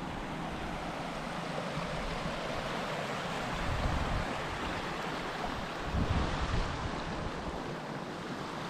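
Rushing floodwater after heavy rain, running steadily over a road. Wind buffets the microphone twice, about four and six seconds in.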